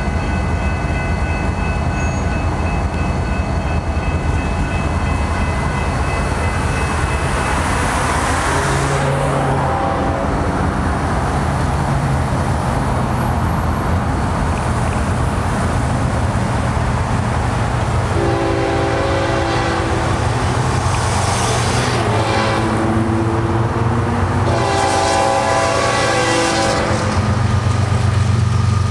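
Approaching diesel freight train, a GE ES44C4 locomotive leading: a steady low rumble under passing road traffic. The locomotive's air horn sounds several chord blasts, the clearest three in the last ten seconds or so, as it nears the grade crossing.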